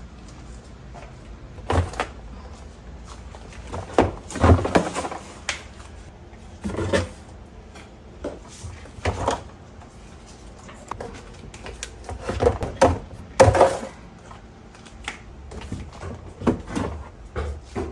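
Irregular knocks, clunks and clatter of household objects being handled and set down, a dozen or so separate strikes with the loudest about four seconds in and again near thirteen seconds.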